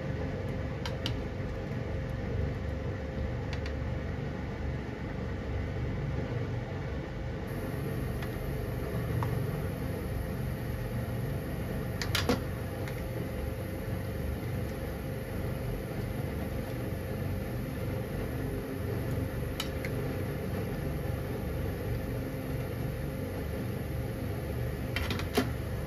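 A steady fan-like hum, with a metal ladle clinking against a frying pan of simmering stew a few times, most sharply about 12 seconds in and again near the end.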